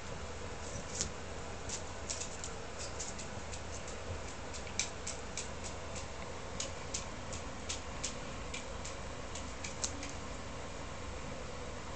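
A hen dust-bathing in spilled potting compost on a tiled floor: irregular light ticks and patters as she flicks the compost about and grains land on the tiles, thickest through the middle.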